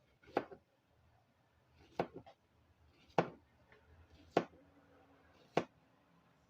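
Knife chopping vegetables on a cutting board: five sharp, evenly spaced chops about a second apart.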